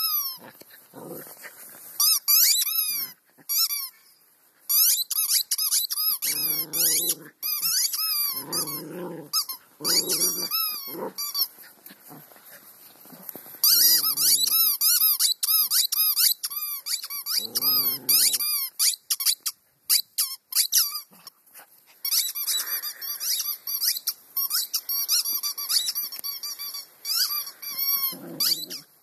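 A dog chewing a rubber squeaky toy, setting off rapid runs of high squeaks in bursts, with several short low growls between them.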